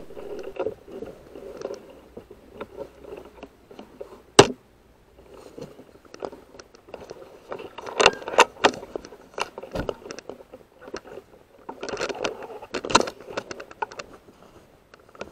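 Irregular clicks, knocks and rustling as an air rifle is handled and carried while the shooter moves on foot, with one sharp, loud click about four seconds in and bunches of clicks near the middle and toward the end.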